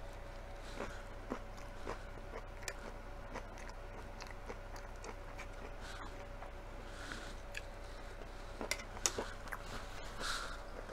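Close-up mouth sounds of someone chewing a forkful of mixed vegetables: soft wet chews and lip smacks with scattered small clicks, over a faint steady hum.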